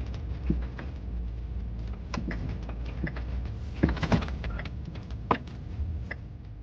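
Low steady rumble with irregular clicks and knocks scattered through it, the sharpest cluster about four seconds in.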